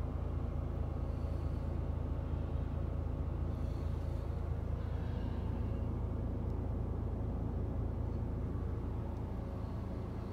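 The truck's PACCAR straight-six diesel engine idling, heard from inside the cab as a steady low rumble.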